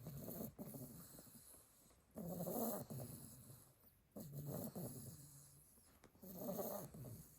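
Sleeping Staffordshire bull terrier puppy snoring: four soft snoring breaths about two seconds apart, the loudest a little over two seconds in.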